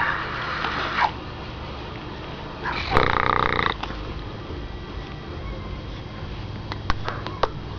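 Newborn baby with hiccups: short, sudden hiccup sounds and small breathy noises, with a brief pitched vocal sound from the baby about three seconds in.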